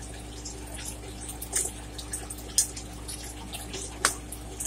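Wet eating sounds close to the microphone: a few short, sharp smacks and clicks at irregular intervals as a shrimp from a crawfish étouffée is eaten.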